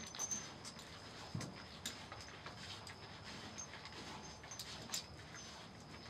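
Faint, scattered clicks, snuffles and soft knocks from a newborn Jersey/Dexter cross bull calf nosing and mouthing at its mother's udder, stirring the straw bedding, with one soft low thump about a second and a half in.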